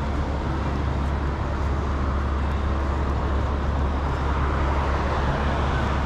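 Steady road traffic noise: a constant low rumble with an even hiss over it.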